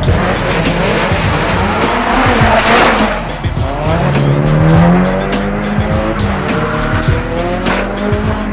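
Drift cars' engines revving hard, the note rising and falling, with tyres squealing as the cars slide sideways on a wet track.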